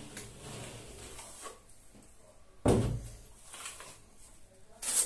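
Steel plastering trowel spreading and smoothing base-coat plaster on a wall, a quiet scraping, with one sharp knock a little past halfway and a short, high scrape near the end.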